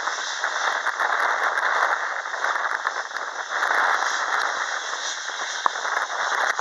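Boeing C-40A Clipper's CFM56-7 turbofan engines running at taxi power as the jet turns onto the runway: a steady rushing noise with a crackly edge.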